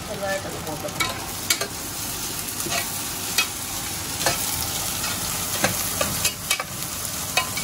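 Sliced onions sizzling in hot oil in an aluminium pressure cooker, sautéing until soft. A spatula stirs them and knocks and scrapes against the pot in scattered sharp clicks.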